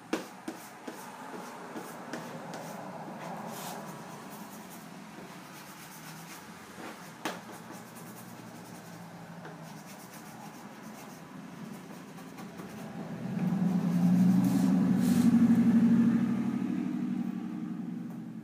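A squeegee and hand rub and scrape across a wet vinyl decal on a car hood, pressing the stripe down and working the soapy water out from under it, with a few light clicks at the start. About thirteen seconds in, a louder low hum swells up for several seconds and fades near the end.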